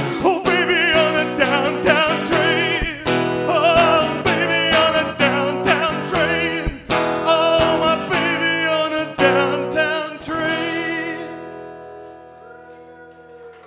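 A man singing long, wavering held notes over a strummed acoustic guitar. About ten seconds in the strumming stops and the final chord rings out and fades, ending the song.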